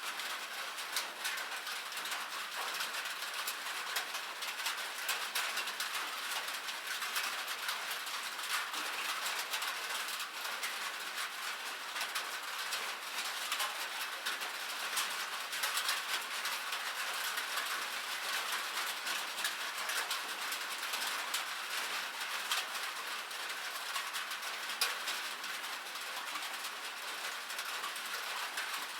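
Steady rain pattering on a cabin roof, a dense even patter of many small drop ticks with no thunder.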